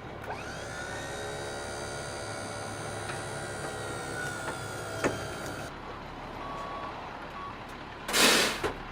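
A motor-driven lift whines steadily for about five seconds, its pitch rising briefly as it starts, while raising a heavy 8-foot log, then stops. A short loud rush of air or noise follows near the end.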